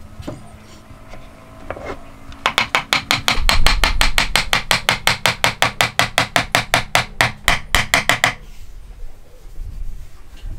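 Hammer rapping quickly on the end of a wooden mitered dovetail joint, about six blows a second, driving the joint home. The blows start about two and a half seconds in and stop a couple of seconds before the end.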